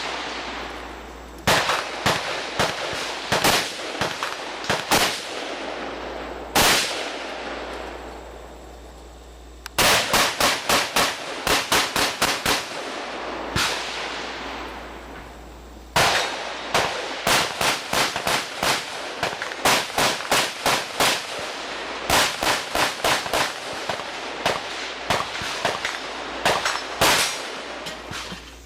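AR-15-type rifles firing 5.56 mm/.223 rounds in quick strings of several shots a second, each crack followed by a short ringing tail. There is a lull of a few seconds, and the firing then picks up again in fast runs.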